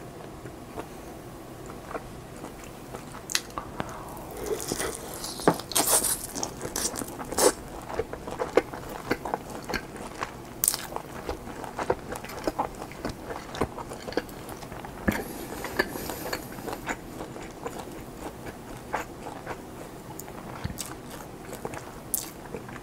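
Close-miked eating: biting into and chewing German-style handmade ham with mustard. It comes as an irregular run of wet, crunchy clicks that is busiest a few seconds in.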